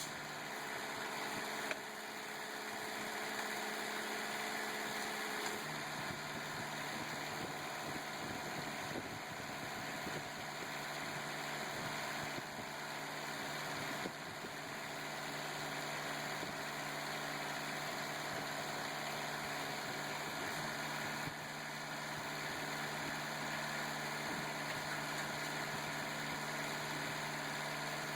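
Truck rim crusher's power unit and hydraulic pump running: a steady mechanical drone that drops to a lower pitch about five and a half seconds in.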